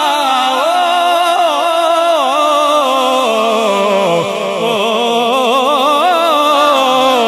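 A man singing a naat in a long wordless melisma, his voice wavering up and down in rapid ornaments, with a steady lower tone held beneath it.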